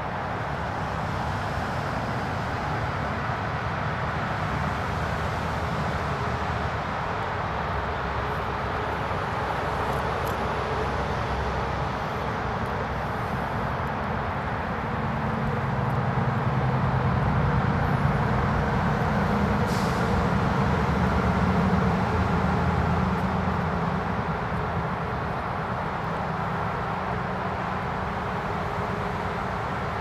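Steady rumble of distant vehicle traffic, swelling louder for several seconds around the middle as something heavier passes.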